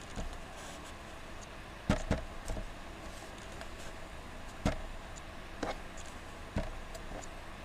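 Computer mouse clicking: several short, sharp clicks, a pair about two seconds in and more a few seconds later, over a steady background hiss.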